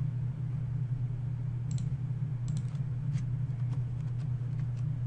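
Sparse computer mouse clicks and a few keyboard keystrokes, short and sharp, starting a little under two seconds in. A steady low hum runs underneath.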